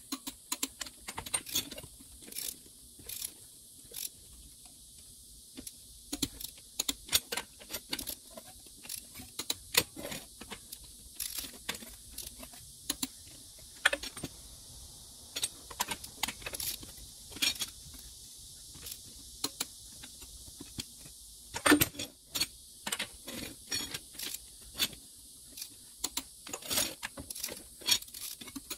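Irregular metallic clicks and clinks of a long-handled socket wrench and lug nuts on a motorhome's aluminium rear wheel, with one louder clank about three quarters of the way in.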